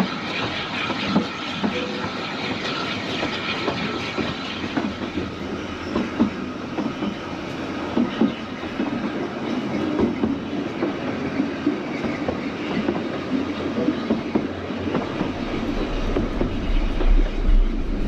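Narrow-gauge railway carriage running along the line: a steady rumble and rattle from the wheels and coachwork, with irregular clicks and knocks. A deeper low rumble builds near the end.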